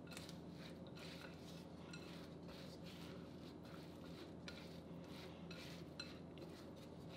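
Faint scraping and light clicking of a silicone spatula against a glass mixing bowl as it folds sticky caramel-coated granola, with one sharper tick about six seconds in.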